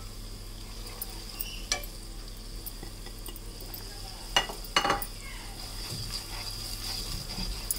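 Tomato masala and freshly added ground spices frying in hot oil in a pan with a steady sizzle while a spatula stirs them. A few sharp knocks of the spatula against the pan, two close together about halfway through.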